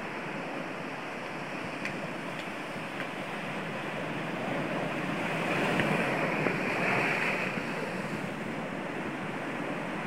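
Sea surf breaking over rock ledges: a steady rushing wash of waves that swells louder about halfway through as a bigger wave crashes and sprays, then settles back.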